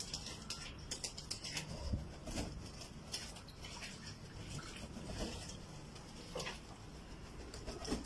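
Domestic pigeons moving about on a loft floor: irregular clicks, scuffles and wing flutters as a flock crowds around a bowl.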